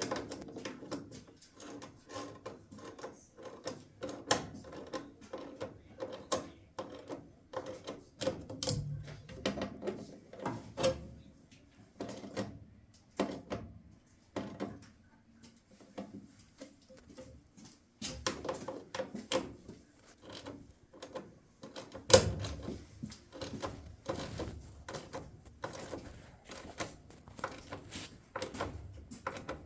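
Irregular clicks, knocks and rattles of metal parts and screws being handled while a furnace inducer blower is fitted into place, with a sharper knock about twenty-two seconds in.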